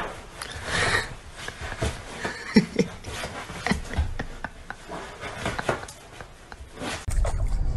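A cat's claws scratching and scrabbling at a fabric sofa as it struggles to pull itself up, many short scrapes and clicks, with a couple of short low voice sounds about two and a half seconds in. Near the end a louder, steady rush of noise cuts in.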